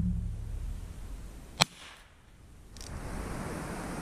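Ruger Bearcat .22 rimfire single-action revolver firing one sharp shot about a second and a half in. Before it, the low rumble of a shot fired just before dies away at the start. A steady hiss rises in the second half.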